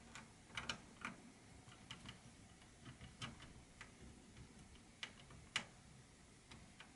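A small screwdriver turning screws into the plastic bottom case of a Dell Vostro 3560 laptop: faint, irregular clicks and ticks.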